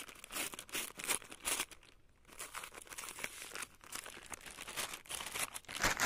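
Brown kraft-paper mailer envelope being torn open and crinkled by hand: irregular papery tearing and rustling as the contents are worked out.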